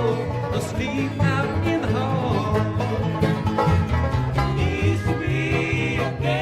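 Background music: acoustic country-style tune with plucked strings over a moving bass line.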